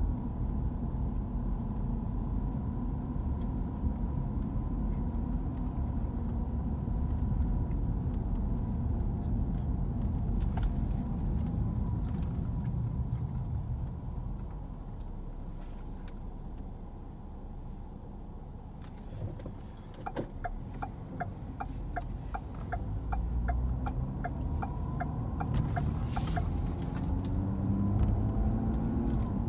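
Car engine and road rumble heard from inside the cabin while driving slowly. The rumble drops as the car slows for a stop. Then a turn signal ticks about twice a second for several seconds, and the engine picks up again near the end.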